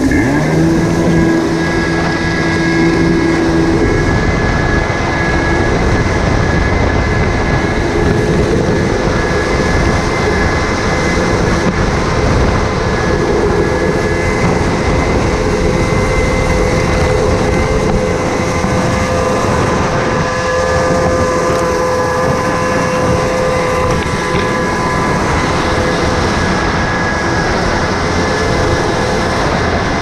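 1987 Kawasaki X2 stand-up jet ski's two-stroke twin engine running steadily under way, its pitch holding with a few small shifts, mixed with the rush of water and wind on the microphone.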